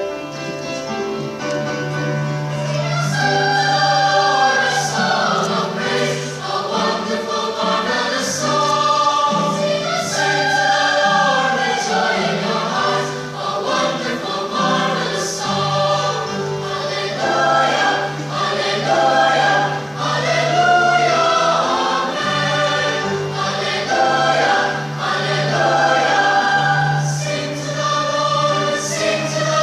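Youth choir singing together, with a held low bass note underneath that shifts pitch every few seconds.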